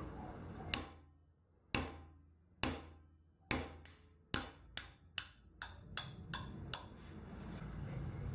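A series of about a dozen sharp knocks, each with a brief ring. They come about a second apart at first, then closer together, two or three a second.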